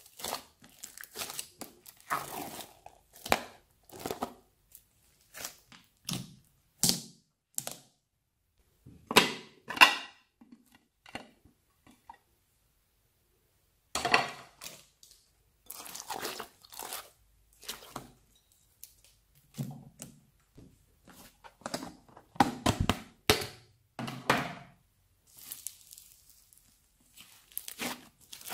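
Hands squeezing, stretching and poking a large batch of slime with foam beads mixed in: a series of short squishing and crackling sounds one after another, with a silent pause about halfway through.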